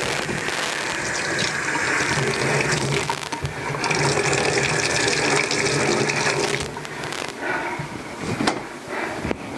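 Water running from a tap onto a hot metal part to cool it, a steady rush that stops about seven seconds in, followed by a few knocks near the end.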